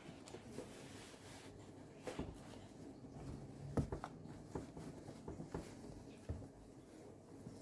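Scattered soft knocks and light rustling, about five separate knocks spread over several seconds, in a quiet room.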